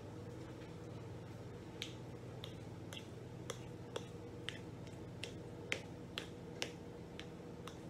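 Potato masher knocking against the pot as boiled potatoes are mashed: sharp clicks about two a second, starting about two seconds in, over a steady low hum.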